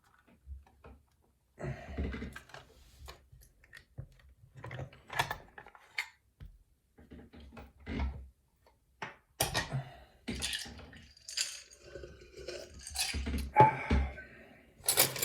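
Irregular metallic clicks and clinks of a just-opened pin-tumbler challenge lock and lock-picking tools being handled, with a few louder clusters of rattling about two-thirds of the way in and near the end.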